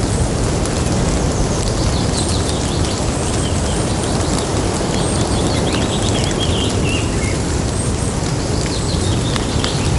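Rain falling and dripping from wet leaves as a steady hiss, over a continuous low rumble. Birds chirp at intervals through it, more often in the second half.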